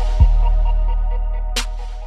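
Electronic hip-hop beat with a deep, held bass note, a kick drum just after the start and a cymbal hit past halfway, slowly getting quieter.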